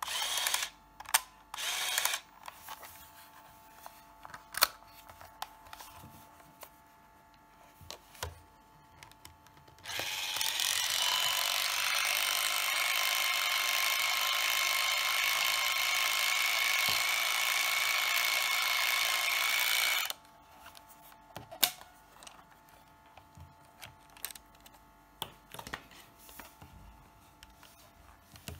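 Motor of a Minolta F10BF Date 35mm compact film camera whirring steadily for about ten seconds near the middle, with a couple of short motor runs at the start and scattered sharp clicks of buttons and the camera body being handled.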